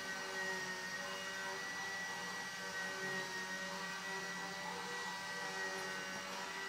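Electric drive of a G-scale LGB model aerial gondola running, a steady whir with a constant high tone and a lower hum that swells and fades as the cabins travel along the cable.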